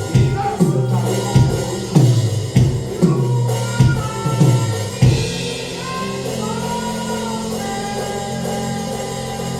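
Live worship music: a drum kit beats steadily under a sung melody. The drums drop out about five seconds in, leaving held chords and the melody.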